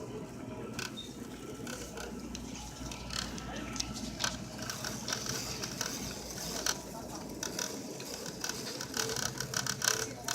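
Irregular mechanical clicking and rattling that grows busier and louder toward the end, over a steady low hum.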